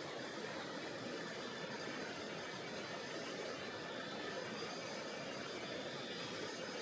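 Tonghou River's water flowing, a steady, even rush with no change in level.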